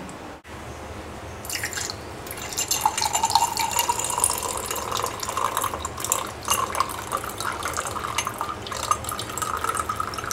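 A thin stream of water pouring into a drinking glass, splashing and trickling from about a second and a half in, its pitch rising slowly as the glass fills.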